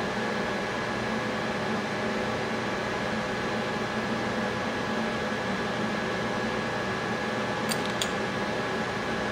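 Steady hum of fans or ventilation, with several steady tones in it. About three-quarters of the way through come two light clicks of small parts being handled.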